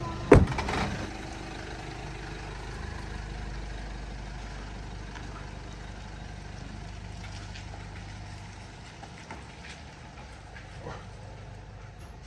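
A single sharp thump just after the start, then a motor vehicle's engine running with a steady low drone.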